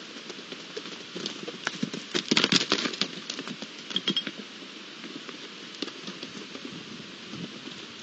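Red deer fawn's hooves striking dry, stony ground as it runs close by: a quick flurry of sharp knocks and scuffs about two seconds in, with a few more strikes about four seconds in.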